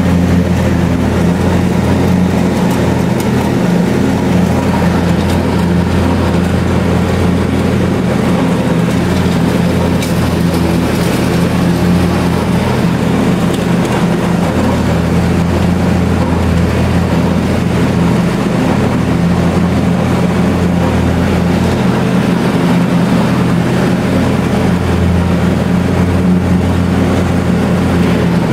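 John Deere D125 riding lawn tractor's engine running steadily at one constant speed while mowing, with no revving or pauses.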